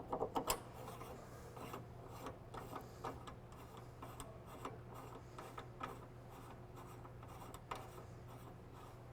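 Faint rubbing and small clicks of a nut being threaded onto a GROHE GrohSafe 3.0 shower valve to hold its cartridge, with a quick run of clicks at the start.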